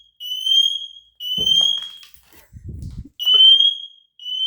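Smoke alarm sounding in its three-beep pattern: loud, high beeps, each rising slightly in pitch, in groups of three with a pause of about a second between groups.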